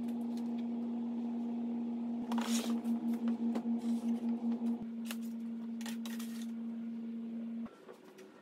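A heavy electric motor and a wooden block being shifted and set down on a rubber-matted bench top, making a few short scrapes and knocks, over a steady low hum that pulses for a couple of seconds in the middle and cuts off suddenly near the end.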